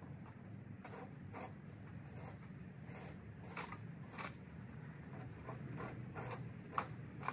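Dry leaves and a black plastic trash bag rustling and crinkling in short, irregular strokes as leaves are raked into the bag.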